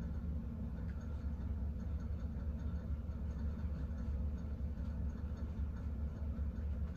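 Steady low hum of room background noise, with no speech.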